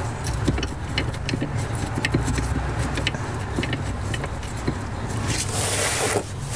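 Small irregular metal clicks and light scrapes as a gloved hand works a screw and the selector rod at the gear selector housing under the car, over a steady low hum. About five and a half seconds in there is a brief rustling hiss.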